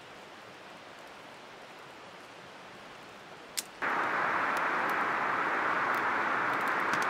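A small campfire of twigs and sticks burning with a soft steady hiss and a single snap. About four seconds in, the sound jumps louder to the steady rush of the river, with the fire crackling on top.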